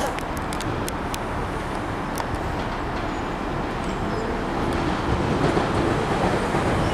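London Underground Central Line 1992 Stock train moving slowly at a station platform: a steady rumble that grows louder from about halfway through, with a few sharp clicks near the start.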